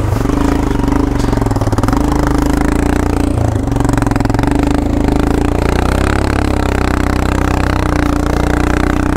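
Motorcycle engine running steadily under way at low speed, its pitch shifting slightly now and then.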